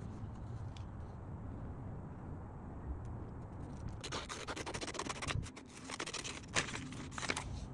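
Pen scratching across a sheet of paper as an outline is traced, then scissors cutting the paper, a quick run of crisp snips and paper rustling from about halfway through.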